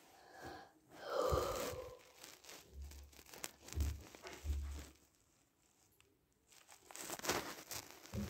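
Rustling and crinkling noises close to the microphone, once about a second in and again near the end, with a few soft low thumps in between.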